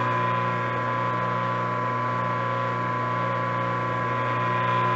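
Anodilar electric pasta machine (clay roller/dough sheeter) running: a loud, steady motor hum with a high tone over it.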